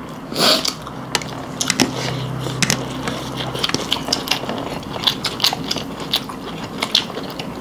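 Close-up eating sounds: chewing with wet mouth smacks and a scatter of sharp clicks and crunches as food is eaten by hand.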